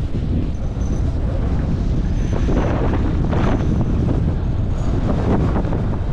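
Wind rushing over an action camera's microphone as a snowboard slides fast down a groomed run, with the board's edges scraping over packed snow in several short swells as it turns.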